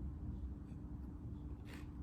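Close-miked chewing of cake with a crunchy topping, with one sharp crunch near the end, over a steady low electrical hum.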